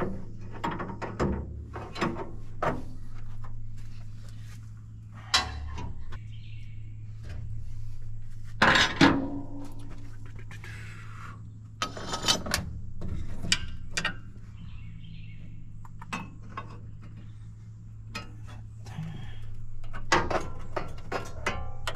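Hand tools working the transmission cooler line fittings on a truck radiator: metal clinks, scattered knocks and clanks, with one loud clank about nine seconds in. A steady low hum runs underneath.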